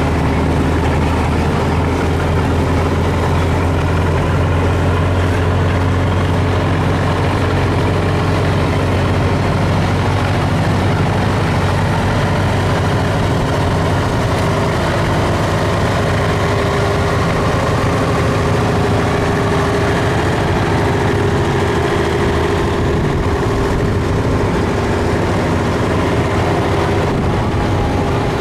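Engines of vintage farm tractors running steadily at low speed as they pass one after another, a deep continuous engine drone.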